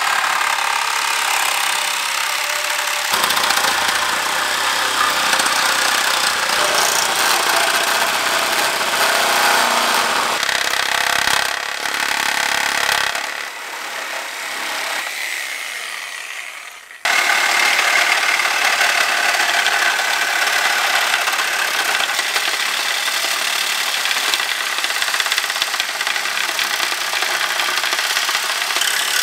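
Corded DeWalt reciprocating saw cutting through a carbon-fibre bike frame: a steady, loud buzzing rasp. About thirteen seconds in the saw eases off and winds down, then starts again abruptly about four seconds later and cuts on.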